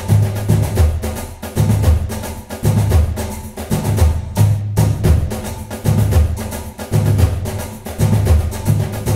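Background music with a steady bass beat and percussion.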